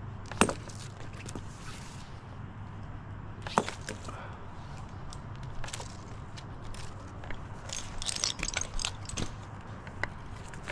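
Tree climber's gear clinking and knocking while he moves in the tree: two sharp knocks in the first four seconds and a run of rapid metallic clinks about eight seconds in, over a steady low hum.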